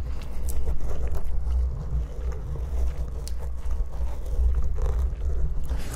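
Hand rubbing the foam windscreen of a microphone up close: a steady low rumble.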